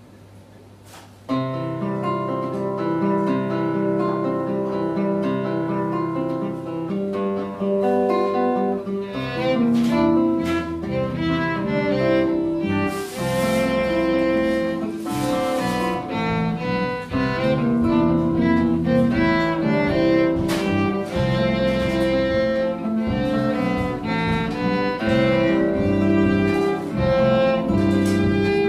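Live jazz band of acoustic guitar, electric bass, drums and keyboard playing an instrumental tune, with long held notes. The music starts about a second in, and cymbal washes ring out twice about halfway through.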